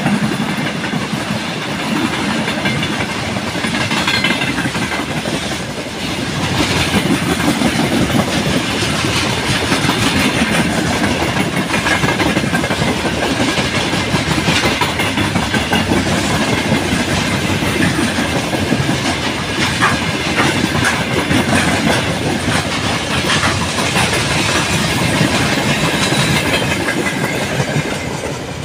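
Wagons of a long broad-gauge freight train rolling past close by: a continuous loud rumble with the clatter of wheels over the rail joints.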